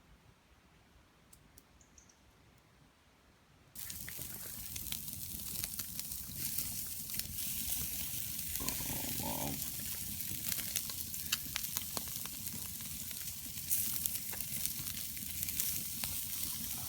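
A few faint clicks, then about four seconds in a sudden start of steady sizzling: food frying, with many small crackles and pops.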